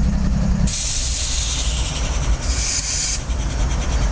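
GE ES44AC diesel locomotive's engine rumbling low. About a second in, a loud hiss of compressed air venting from the locomotive's air system starts, thins a little, and cuts off suddenly after about two and a half seconds.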